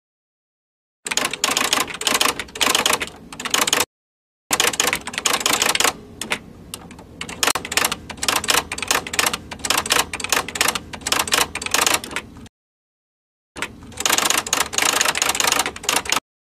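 Typing sound effect: rapid runs of clicking keystrokes that stop dead for a moment a few times, matching on-screen text being typed out letter by letter.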